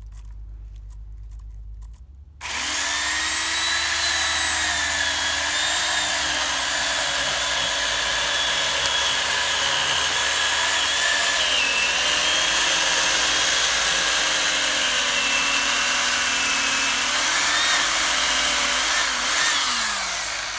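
Corded electric chainsaw whining steadily as it saws into a tree trunk. It starts suddenly about two seconds in, its pitch dipping a little under load, and near the end it is let off and winds down with a falling pitch.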